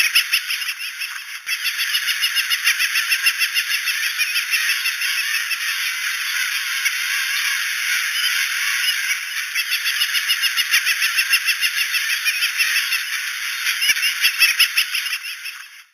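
A dense chorus of many shorebirds calling at once, a constant chatter of overlapping short calls that cuts off suddenly at the end.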